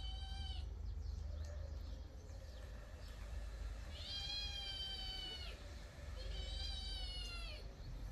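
Cat meowing: the tail of one meow right at the start, then two long, drawn-out meows of about a second and a half each, roughly four and six and a half seconds in, over a steady low hum.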